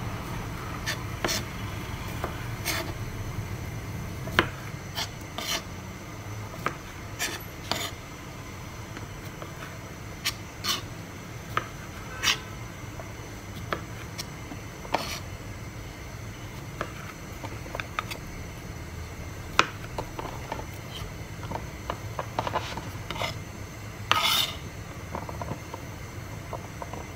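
Chef's knife halving cherry tomatoes on a plastic cutting board: irregular sharp taps of the blade striking the board, roughly one a second, with a longer, louder stroke near the end. A low steady hum sits underneath.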